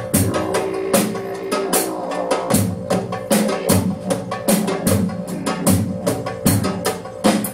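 Music with a steady drum-kit beat: strong low drum hits recur evenly under lighter strikes and sustained pitched tones.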